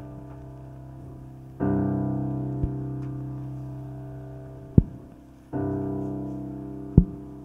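Slow piano chords, one struck about a second and a half in and another about five and a half seconds in, each left to ring and fade. Three short, sharp knocks fall among them, the later two the loudest sounds.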